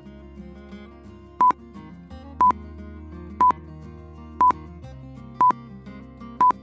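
Background music with a short, loud, high beep repeating once a second, starting about a second and a half in: six beeps in all, much louder than the music.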